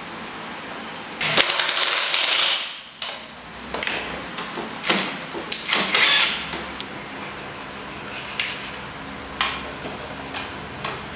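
Cordless driver running in bursts as it drives a screw into a plywood board: one longer run about a second in, then several short bursts, followed by a few light clicks and knocks of handling near the end.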